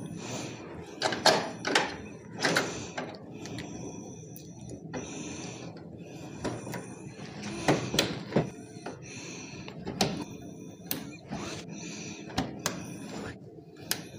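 Handling noises from a front-load washing machine's plastic control panel as it is moved and wire connectors are fitted to its circuit board: irregular knocks and clicks with some rubbing in between.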